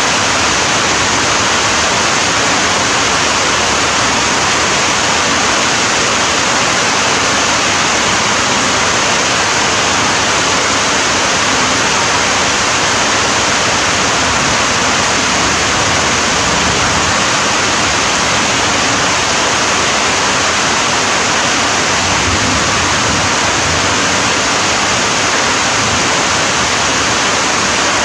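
Steady heavy rainfall, a dense even hiss with no breaks or single drops standing out.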